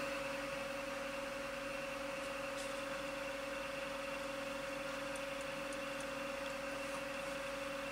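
Steady background hum: one constant mid-pitched tone with a weaker lower tone over an even hiss, with a few very faint ticks.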